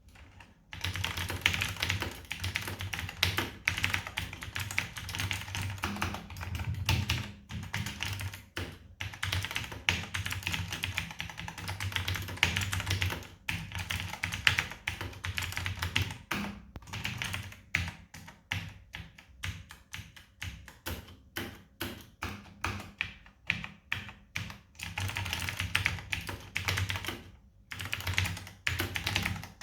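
Typing on a vintage Dai-ichi mechanical keyboard with lubed Dai-ichi CL-1145 switches, a switch close to the Omron B3G-S: quick bursts of keystroke clacks, slowing to separate single presses for a while past the middle before picking up again.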